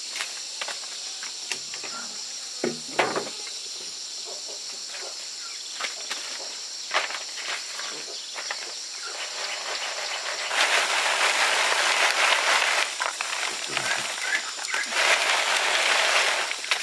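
A hissing, sizzle-like noise with scattered sharp clicks and knocks over a steady high hiss. It swells louder twice in the second half.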